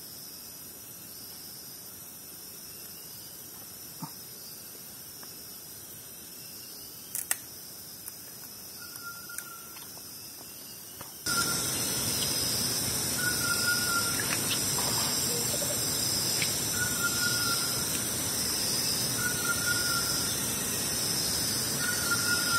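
Tropical forest ambience with a steady high-pitched drone. About eleven seconds in it gets abruptly louder, and a short call of unknown origin repeats about every two seconds over the drone.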